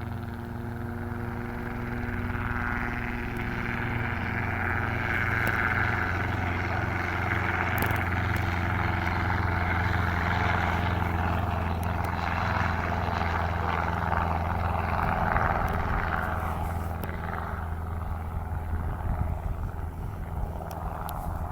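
Private helicopter circling overhead: a steady low rotor beat under a broad engine rush. It grows louder through the middle as it passes closer, then eases off a little near the end.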